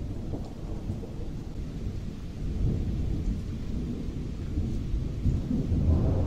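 Wind rumbling and buffeting a camcorder microphone under a tornadic supercell: a low, fluctuating rumble that swells a little near the end.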